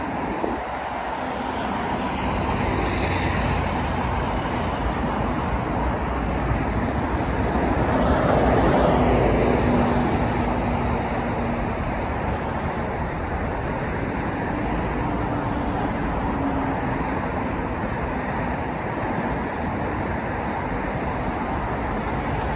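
Steady traffic noise from a busy multi-lane road, with vehicles passing. It swells as a louder vehicle goes by about eight to ten seconds in.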